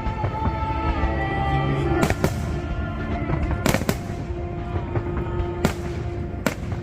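Fireworks bursting: about six sharp bangs, some in quick pairs, over music playing steadily underneath.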